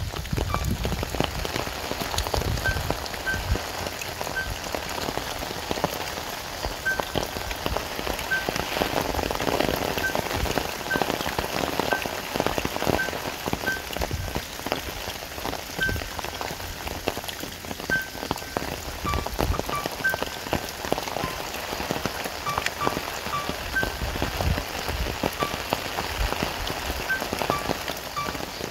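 Steady patter of rain, with faint short high notes sounding every second or two.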